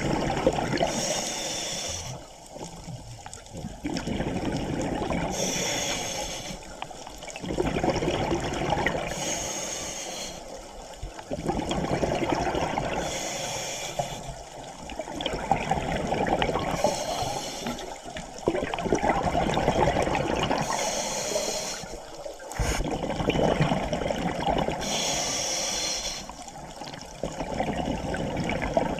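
Scuba diver breathing through a regulator, about every four seconds: a short hissing inhale, then a longer gurgle of exhaled bubbles.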